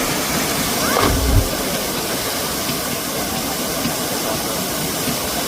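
Steady rushing roar of a waterfall, with a brief low thump about a second in.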